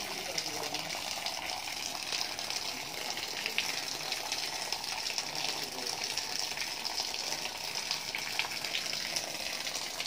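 A Holstein-type dairy cow urinating, a steady stream splashing onto the slatted stall floor.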